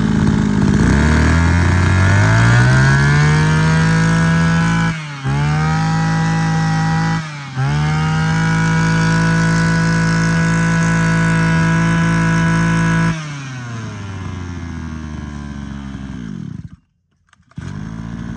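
Mitsubishi TL231 23cc two-stroke brush cutter engine running: revved up to high speed, with the throttle dipping briefly twice, then dropped back to a quieter idle for the last few seconds, broken by a short gap.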